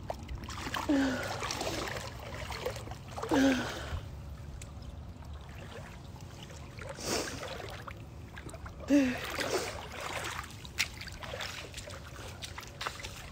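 A woman's few short murmured vocal sounds, each falling in pitch and several seconds apart, over a steady low rumble.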